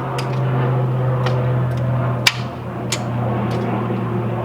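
Several sharp single clicks from a 1992 Jeep Wrangler YJ's starter solenoid as the key is turned, with the engine not cranking at all, over a steady low hum. It is the click-only no-start of an engine that has just been rebuilt.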